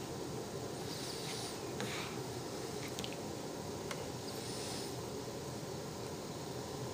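Quiet steady room tone, with a few faint breathy sounds and soft clicks.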